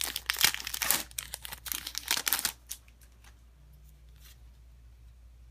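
Foil Pokémon booster pack wrapper being torn open and crinkled by hand, for about the first two and a half seconds, then a few faint clicks.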